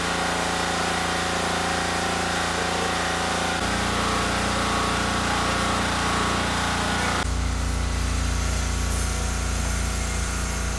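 Steady mechanical drone, like a running engine or power tool, with no separate knocks. Its pitch and tone change abruptly about 4 seconds in and again about 7 seconds in.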